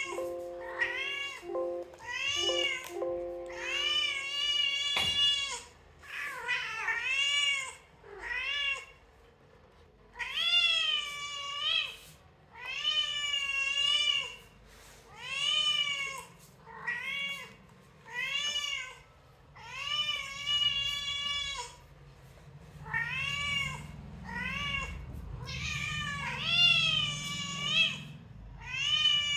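Cat meows, one after another, about one every second or so, each rising and then falling in pitch. Two steady tones hum beneath the first few seconds, and a single knock comes about five seconds in.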